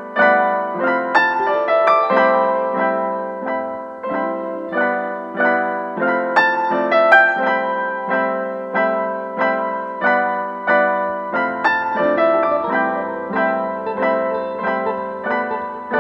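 Background piano music: a steady run of struck notes and chords, each fading after it is played.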